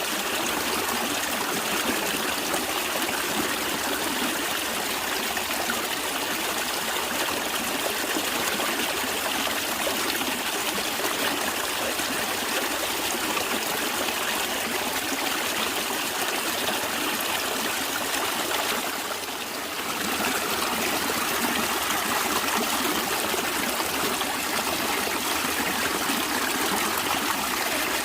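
A natural stream flowing and trickling steadily, dipping briefly in level about two-thirds of the way through.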